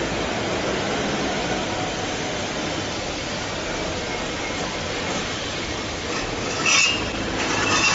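Steady mechanical noise, with two short, louder metallic scrapes or clanks with a high ring, one about two-thirds of the way in and one at the end.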